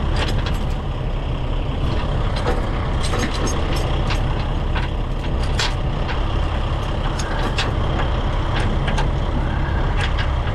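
Steel tow chain clinking and rattling in short, irregular clanks as it is wrapped around a semi-truck's front axle, over the steady low rumble of an idling truck engine.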